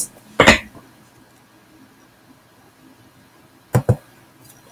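Quiet room tone, broken near the end by two sharp clicks a fraction of a second apart: the computer click that advances the on-screen book page.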